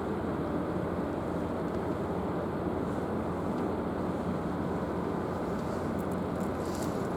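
Steady, even rumble and rush of a large ship, mixed with wind on the microphone. A couple of faint clicks come near the end.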